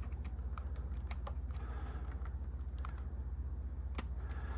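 Faint scattered clicks and soft rustles from hands and a chamois swab working at the open tape mechanism of a Sony Video 8 camcorder, over a steady low hum. One click about four seconds in is sharper than the rest.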